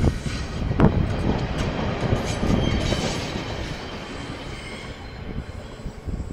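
KiwiRail train rolling past, its wheels clacking sharply over rail joints near the start and about a second in, then a steady rumble that fades as the train draws away.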